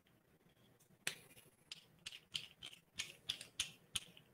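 About a dozen faint, irregular metallic clicks and clinks as a solid-brass replica Apollo penlight is handled and closed up with fresh batteries inside.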